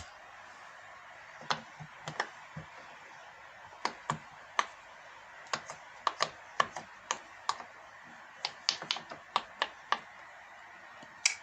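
Sharp, irregular clicks and taps of small hard plastic toys being handled and set down, about twenty in all, some in quick pairs.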